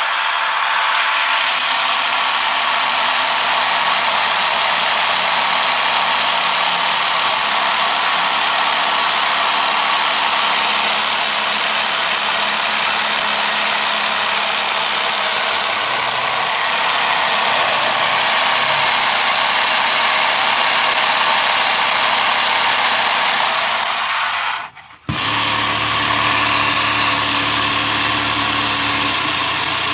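Motorized LEGO model of a Toyota 4A-GE four-cylinder engine running: a steady plastic clatter and whir from its 2x2 pistons and belt-driven pulleys. The sound cuts out for an instant about 25 seconds in, then carries on with a slightly steadier hum.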